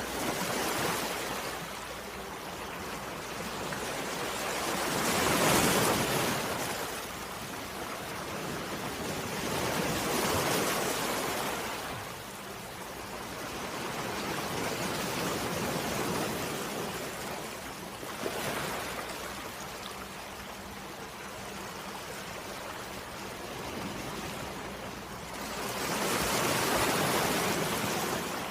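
Gentle waves lapping on a shore: each wave is a wash of noise that swells and then ebbs, arriving every five seconds or so, with a longer lull between waves in the second half.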